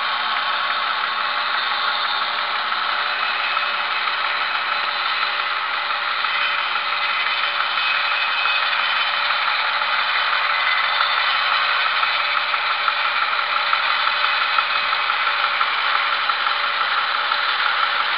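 Homemade bandsaw mill running, its electric motor driving the band blade over the wheels as it saws through a log: a steady rattling whir, with small sharp clatters showing up in the second half.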